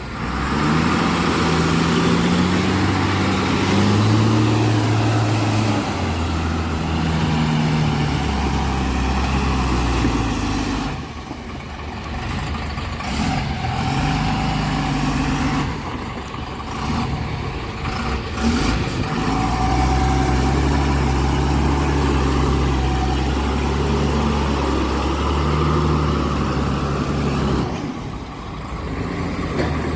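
Heavy diesel engine running, its revs rising and falling in steps, with quieter spells about a third of the way in and near the end.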